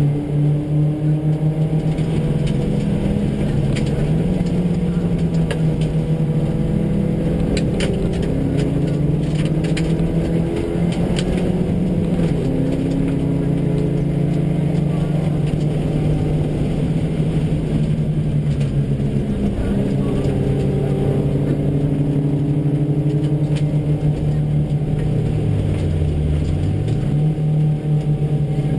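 Two runs of a Subaru flat-four rally car on a gravel stage, heard from inside the cabin and mixed together, one run in each ear. The engines run hard under load with their pitch stepping and shifting as the car changes gear, over steady tyre and gravel noise with scattered sharp clicks. Near the end one engine's pitch drops steeply and climbs back within about a second.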